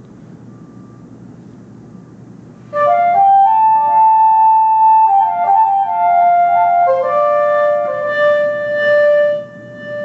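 Synthesized silver flute from the Songbird iPhone app, played by blowing into the phone and fingering notes on the touchscreen: a short melody of held notes that starts about three seconds in and stops near the end. Its canyon effect adds a long echo, so the notes linger and overlap.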